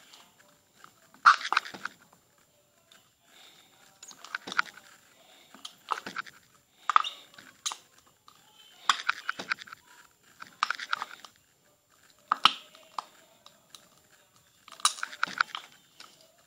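Slime squeezed and squished in the hand: a short burst of sticky clicks and pops every second or two.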